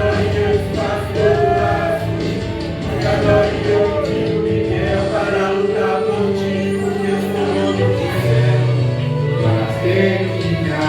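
Gospel song sung with instrumental accompaniment: voices holding long, wavering notes over steady sustained chords.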